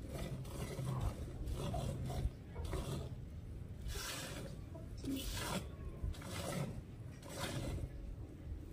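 Hand-milking a cow into a steel pail: milk squirting from the teats into the bucket in a series of hissing squirts, about two a second at first, slowing to about one a second.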